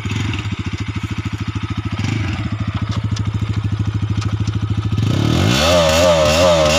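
Bajaj Pulsar NS200 single-cylinder engine running through a modified exhaust: a loud, pulsing idle, then about five seconds in the revs climb and the rider blips the throttle up and down about twice a second.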